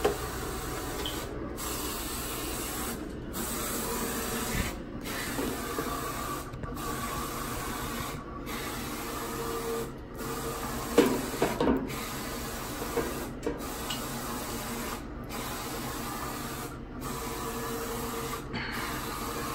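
Roland FJ-50 eco-solvent wide-format inkjet printer printing: a steady whirring hiss from the running machine, broken by a short dip about every 1.7 seconds. A few brief knocks and rustles come about 11 seconds in.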